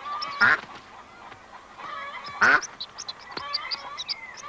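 Domestic duck quacking twice, about two seconds apart, with a flurry of short high chirps and peeps a second or so after the second quack.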